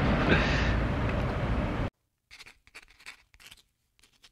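A steady loud rushing noise cuts off suddenly about two seconds in. It is followed by a string of faint, short scratching strokes, like a marker writing, as handwritten title lettering is drawn on.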